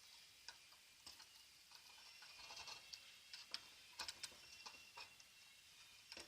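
Faint, irregular ticks and crackles over a thin high hiss: soldering flux sizzling on heated copper.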